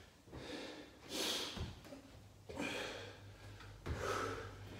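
A man breathing hard under exercise effort while working with dumbbells: four forceful breaths through nose and mouth, about a second and a half apart. There are a couple of soft low thuds as his feet land on the rubber gym floor.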